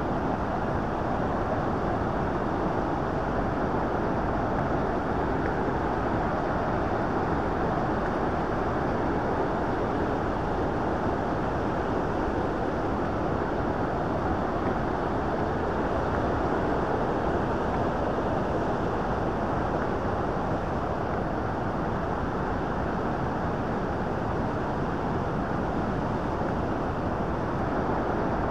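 Water of the Bow River rushing over its falls and rapids: a steady, unbroken rushing noise.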